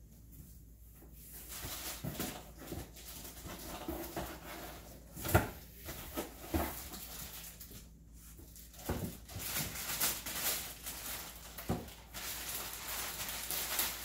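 Plastic packaging bags crinkling and rustling as blender parts are unwrapped and lifted out of a cardboard box, with several hard plastic knocks, the loudest about five seconds in.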